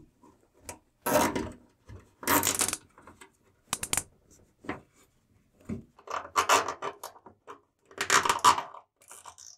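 Wire cables being handled and pushed along a van's bare sheet-metal roof frame: irregular bursts of rubbing and scraping, about five in all, with a couple of sharp clicks near the middle.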